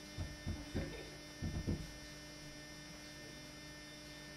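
Steady electrical mains hum, with a few soft, low thumps in the first two seconds.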